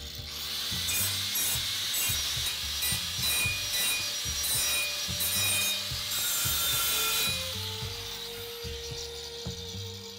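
Angle grinder with a cutting blade trimming the edge of an aluminum miter cut: a harsh rasping cut that comes in short repeated surges, then tails off after about seven seconds.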